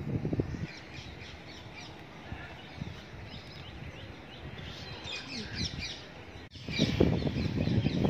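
Small birds chirping in short, scattered calls. A louder low rumbling noise comes in about seven seconds in.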